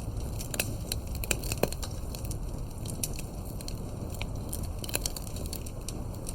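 Fireplace crackling: irregular sharp pops and snaps of burning wood over a steady low rumble.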